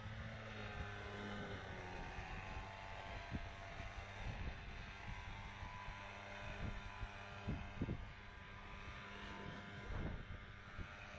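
A steady low engine hum from a distant motor, under a light noise haze, with a few soft low thumps.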